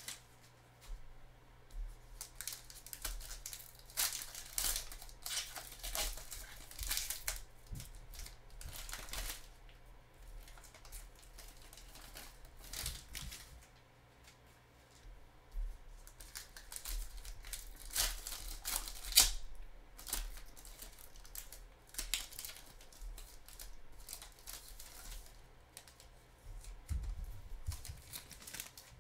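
Trading-card pack wrappers being torn open and crinkled by hand, with cards shuffled between. The sound comes in short bursts with quieter spells between.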